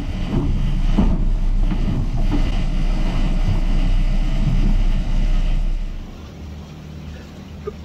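Motorboat under way: engine rumble mixed with rough wind and water noise and a few knocks. About six seconds in, it drops to a quieter, steadier engine hum.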